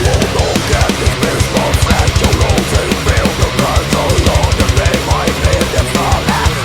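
Heavy metal band playing an instrumental passage: fast, steady drum-kit beat with rapid bass-drum strokes under distorted guitar and bass.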